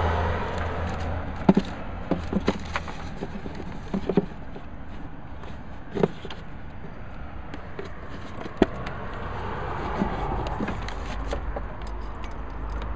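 Handling noises as a ribbed auxiliary belt is pulled off the pulleys of a Volvo D5 engine by hand: scattered sharp knocks and scrapes as the belt and hands catch on engine parts, over a steady low background rumble.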